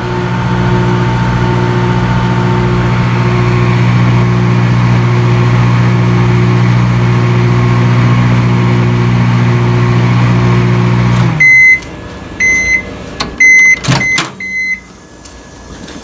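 Countertop microwave oven running at the end of a four-minute cook: a steady hum that cuts off abruptly about eleven seconds in as the timer runs out. Then a series of short high beeps signals the end of the cycle, with a sharp click of the door being opened among them.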